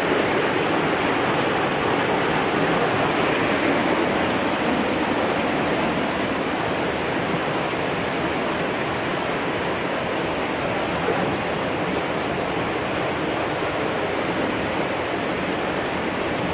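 Waterfall rushing and splashing, a loud, steady roar of falling water with no break or change.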